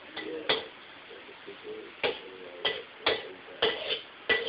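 Metal spatula clacking against a wok while stir-frying: about seven sharp knocks at uneven spacing, most of them in the second half.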